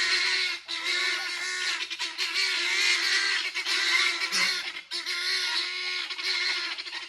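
Guinea fowl calling without pause in a rapid run of repeated notes, broken briefly twice.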